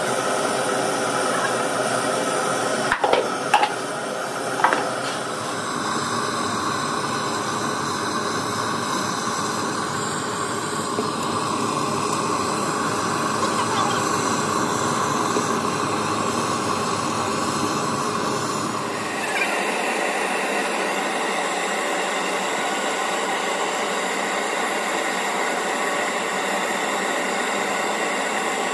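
Gas blowtorch flame burning with a steady rushing noise. A few sharp knocks come about three to five seconds in, and the noise changes character about two-thirds of the way through.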